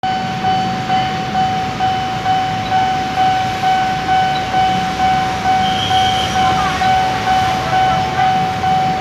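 Railway level-crossing warning bell ringing steadily, about two strikes a second, each fading before the next: the warning for an approaching train.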